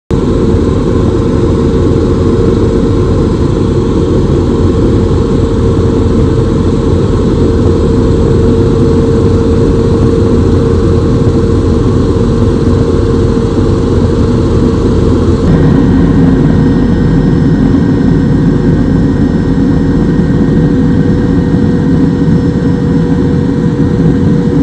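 Loud, steady helicopter engine and rotor noise, with a constant whine running through it. About two-thirds of the way through it changes abruptly to a slightly different steady note.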